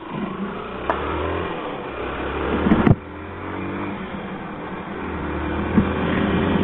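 Yamaha SZ motorcycle's single-cylinder engine under way, the revs building, dropping off sharply about three seconds in, then building again.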